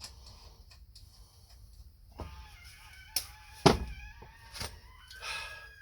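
A few sharp knocks and clicks of tools being handled, the loudest a little past halfway, over faint distant wavering calls.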